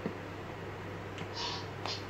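Rubber-soled sneakers stepping on a tile floor: a few light taps and a short hissing scuff about one and a half seconds in, over a steady low hum.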